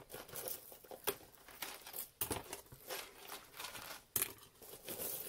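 Rustling and crinkling with irregular small clicks as tangled costume-jewelry earrings are pulled free of their packing, the sharpest clicks about a second, two seconds and four seconds in.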